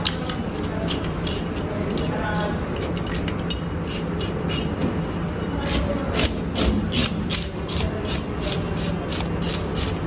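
Hand fish scaler scraping the scales off a hilsa in quick repeated rasping strokes, several a second, scales crackling as they come away.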